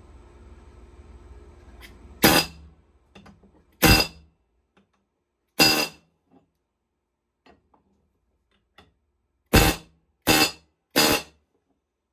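Hammer blows peening a steel rivet on a pipe wrench, each strike ringing like struck metal. There are six blows: three about two seconds apart, then a pause, then three quicker ones near the end.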